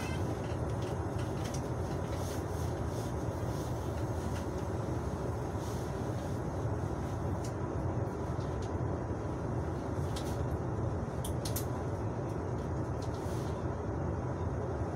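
Steady low rumble of a passenger railway coach heard from inside, with a few faint light clicks scattered through it.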